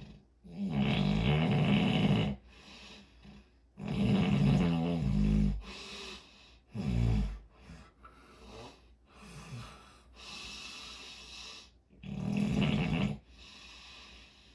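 Heavy snoring in uneven rasping bursts: four loud snores a few seconds apart, with softer, breathy breaths between them.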